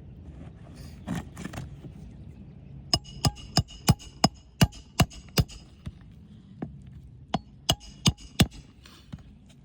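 Hammer driving roofing nails through asphalt shingles: a run of about nine sharp, ringing blows at roughly three a second, a short pause, then four more.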